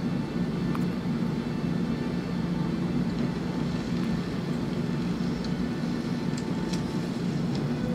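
A steady low mechanical drone with a few faint steady tones above it, like the running noise heard inside a moving vehicle. A few faint, brief clicks come through it.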